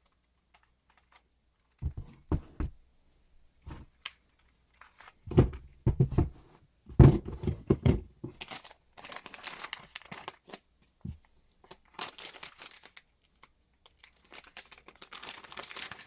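Handling noises: a few knocks and thumps, then irregular crinkling and rustling, like packaging being opened.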